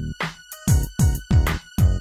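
Electronic outro music: a drum-machine beat of quick punchy hits under bright synth notes.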